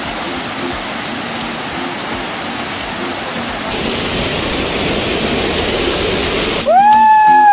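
Steady rushing of water from a waterfall. Near the end a loud, high, held call rises, holds for about a second and falls away in pitch.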